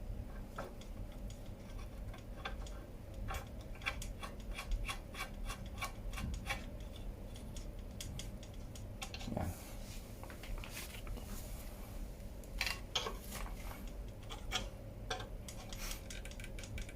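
Light metallic clicks, taps and rubbing of hand tools and steel parts on a bicycle crank, as a crank puller and a small bolt with a washer are fitted to a square-taper crank arm. The sound is many short, irregular clicks, bunched at times.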